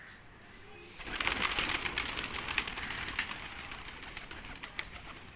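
A flock of fancy pigeons flapping their wings: a sudden clatter of many wingbeats starting about a second in and slowly dying down.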